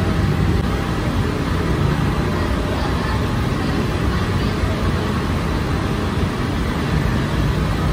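Steady low drone of bakery machinery running, an even noise with no breaks or strikes.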